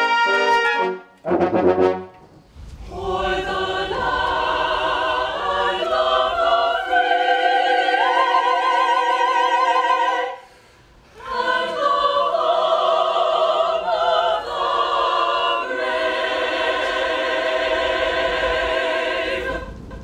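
A brass ensemble of trumpets and French horns holds a chord that cuts off about a second in and sounds one short chord. Then a mixed choir sings a slow piece in two long phrases, with a brief pause about halfway through.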